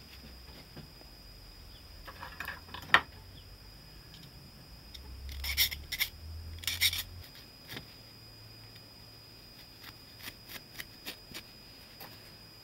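A hand file scraping a small part in a couple of strokes, among clicks and light ticks of small parts and tools being handled, with one sharp click about three seconds in.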